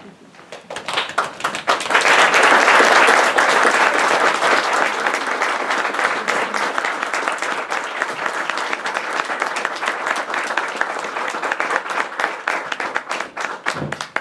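Audience applauding. It builds up over the first two seconds, is loudest a couple of seconds in, then carries on steadily and stops near the end.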